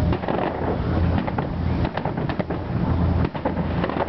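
Aerial firework shells bursting: a run of booms and sharp cracks, sometimes two close together, over a heavy low rumble.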